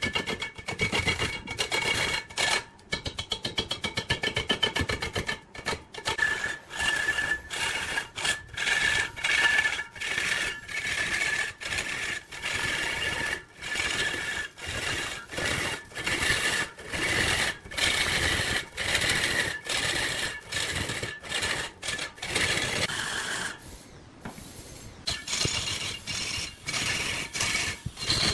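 Turning tool scraping into wood spinning on a lathe, a rasping sound that comes in quick repeated strokes roughly every half second, easing off briefly about 24 seconds in.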